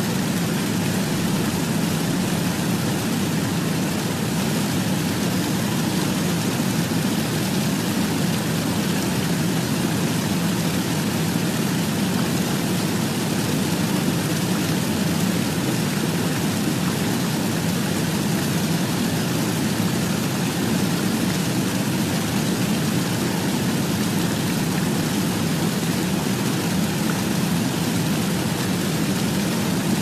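Steady, unbroken rushing noise, heaviest in the low-middle range, with no change in level or pitch.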